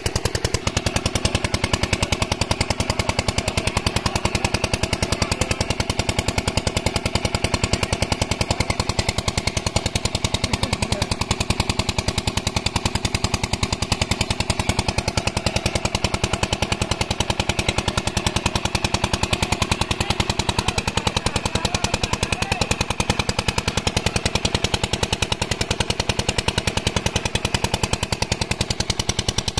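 Small diesel engine of a water pumpset running steadily, its exhaust giving rapid, even firing knocks as it pumps water.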